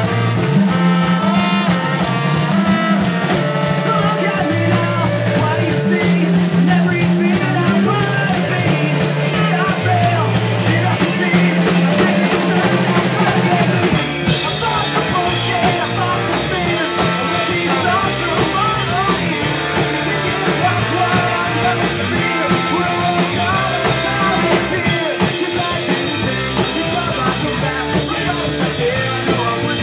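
A ska-punk band playing live, with the drum kit to the fore over a steady bass line. The band gets fuller and brighter about halfway through.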